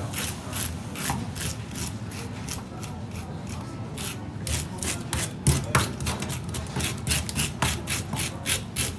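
Scales being scraped off a whole saithe (lieu noir) with a blade: quick repeated scraping strokes along the skin, a few a second, thinning out for a moment in the middle and coming faster and louder in the second half.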